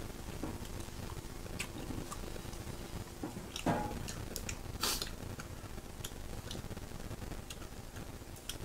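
Pork belly sizzling on an electric grill pan, a light steady crackle with a few sharper clicks and a brief rustle about five seconds in.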